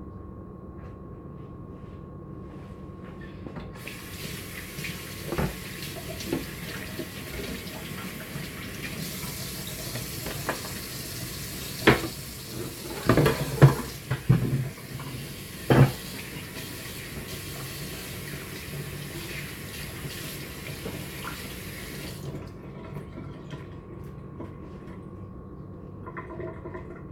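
Kitchen tap running steadily for about eighteen seconds, starting a few seconds in and shutting off near the end, with several knocks and clatters in the middle, loudest between about 12 and 16 seconds.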